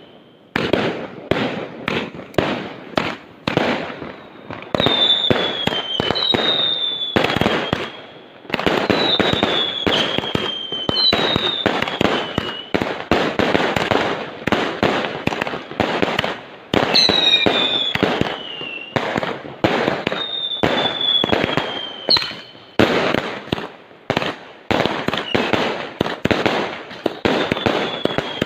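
Fireworks going off in quick succession: dense cracks and bangs, with short whistles falling in pitch every second or two.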